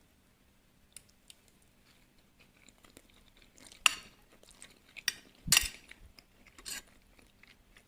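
Spoon or fork clinking and scraping on a plate while eating, a few sharp clinks spread out, louder in the second half.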